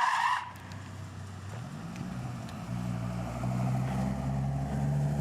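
A skid-like noise from tyres cutting off about half a second in, then a car engine running and slowly climbing in pitch and level as it pulls.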